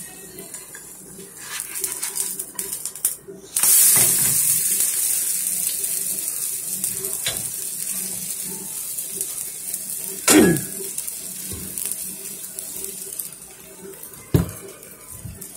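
A zucchini pancake sizzling in hot oil in a nonstick frying pan: the hiss starts suddenly about three and a half seconds in, when the pancake is flipped onto its raw side, and slowly dies down. A silicone spatula scrapes the pan about ten seconds in, and a sharp knock near the end comes as it is set down on a steel pan.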